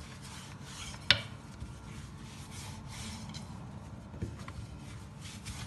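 Long, thin wooden rolling pin rolling out a thin sheet of yufka dough on a floured stone countertop: soft steady rubbing, with a sharp tap about a second in.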